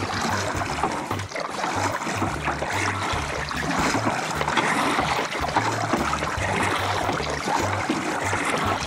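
Kayak paddling: water splashing and trickling off the blades of a double-bladed kayak paddle as they dip in and lift out, stroke after stroke.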